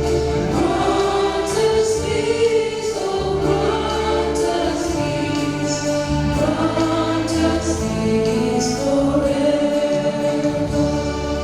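Church choir singing a slow sacred piece in held notes, over steady low bass notes.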